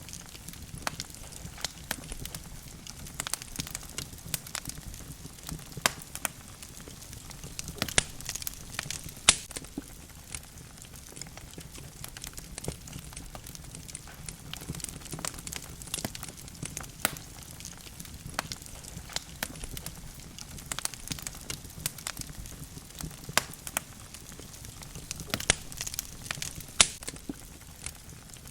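Wood logs burning in a fireplace: a steady low rumble of flames with sharp, irregular crackles and pops, a few of them louder, about nine seconds in and near the end.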